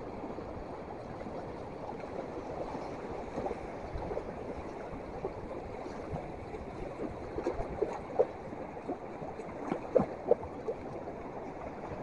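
Steady wash of moving water, with scattered brief knocks or splashes, the strongest about two-thirds of the way through and near the end.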